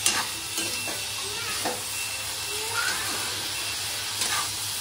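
Chicken meat frying in a hot pan, a steady sizzling hiss with a few light knocks.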